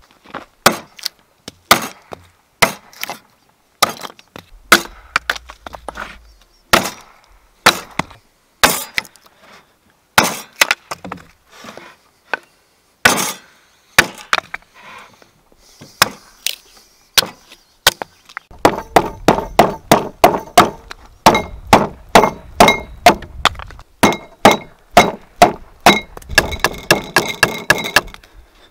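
Small hatchet chopping at the edge of a thick round slice of log, hewing off the bark: a long series of sharp wooden chops. The strokes come about one a second at first and quicken to about three a second in the last third.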